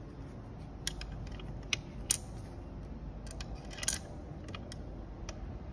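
Scattered sharp metallic clicks and ticks as an Allen key works the screws on a truck seat's steel slide rails, with a quick cluster of ticks a little before four seconds in, over a low steady hum.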